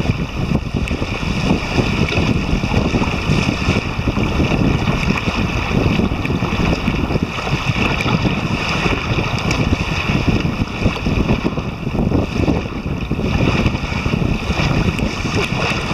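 Strong wind buffeting the microphone in gusts over choppy lake waves lapping against the dock.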